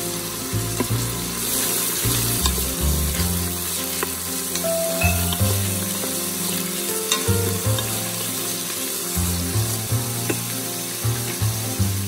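Sliced onions sizzling in hot oil in a stainless steel Instant Pot inner pot on the sauté setting, with a steady hiss. The onions are stirred now and then, and the utensil gives sharp clicks against the pot. Low background music plays under it.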